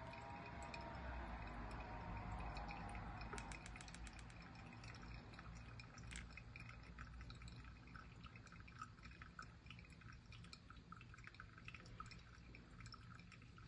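Faint trickle of hot water poured in a thin stream from a gooseneck kettle onto coarse-ground coffee in a V60 dripper, the final pour of the brew. It is fuller for the first few seconds, then thins to a fainter trickle with small drips.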